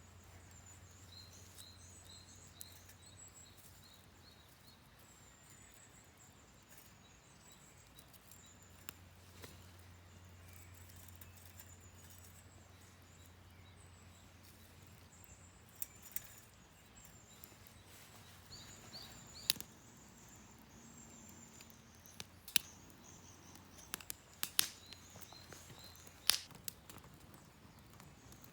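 Small birds chirping in series in the background, with a few sharp, irregular cracks in the second half, the loudest near the end.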